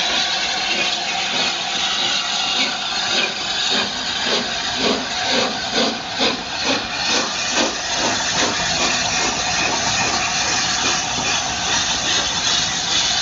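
LNER A4 Pacific steam locomotive No. 4464 Bittern, a three-cylinder 4-6-2, pulling away with a train: a steady hiss of steam with an even run of exhaust beats, about three a second. The beats start a couple of seconds in and blur back into the hiss in the last few seconds.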